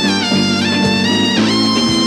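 Jazz big band playing with brass in front, trumpet and saxophones holding notes over the rhythm section, with a pitch fall about one and a half seconds in.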